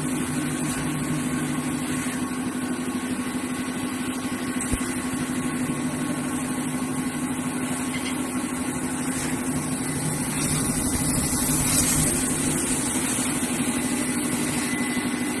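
CNC fiber laser cutting machine running: a steady mechanical hum with a high hiss that swells about two-thirds of the way through. There is one brief knock about five seconds in.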